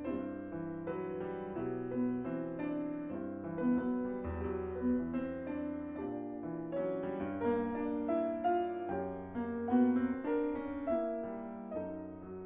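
Steinway concert grand piano played solo: a continuous flowing passage of overlapping notes and changing chords, with notes left ringing into one another and a few deeper bass notes.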